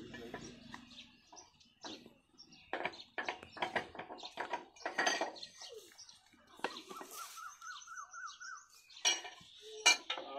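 Irregular metallic clinks and taps of hand tools against the fittings of a Ruston Hornsby stationary diesel engine that is not running.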